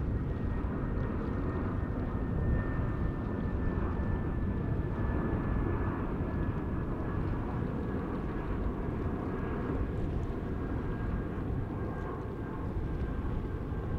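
Jet airliner engines on approach to land: a steady rumble with a faint high whine that slowly falls in pitch.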